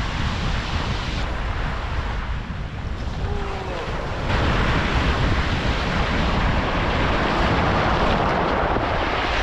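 Surf washing on a rocky shore with wind buffeting the microphone, a steady rushing that grows louder about four seconds in.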